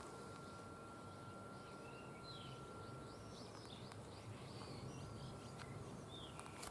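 Faint birds chirping: a run of short, quick chirps and whistles in the middle stretch, over a low steady background hum. A thin steady tone runs through the first half and stops.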